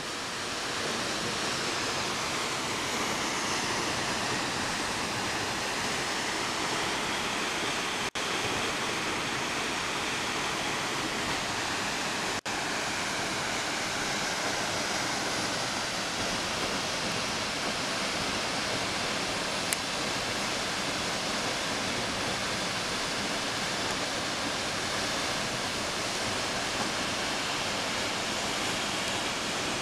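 The steady rush of South Falls, a tall waterfall plunging in a single drop into its pool.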